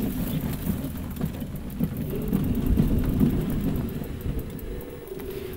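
Rail bike rolling along old rusty rails: its wheels rumble on the track, with scattered clicks and a wavering whine, fading somewhat near the end.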